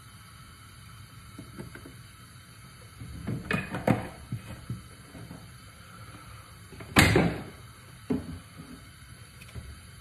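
Kitchen handling knocks: a cluster of light knocks a few seconds in, one loud thump about seven seconds in, and another knock near the end, over a faint steady hiss.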